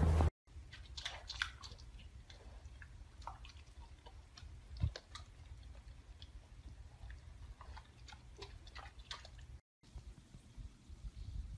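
A mini pig chewing, with soft irregular crunching and clicking over a low steady hum. After a short break near the end, a young beaver nibbling food.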